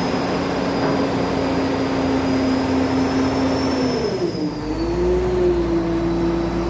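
Atlas 3306 excavator running during a bucket test, with a steady whine over the engine. About four seconds in, the whine dips in pitch and settles a little higher, and a deeper rumble comes in as the load changes.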